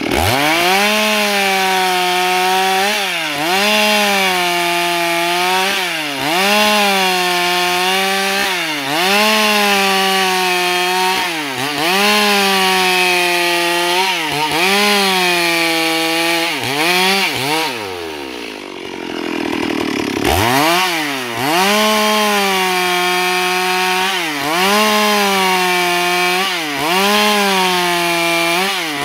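Stihl MS 382 two-stroke chainsaw ripping a plank lengthwise into boards. It runs at full throttle, and its pitch dips and recovers about every one and a half seconds as the chain bites. About two-thirds through the throttle is let off to idle for a couple of seconds, then it revs back up and cuts on.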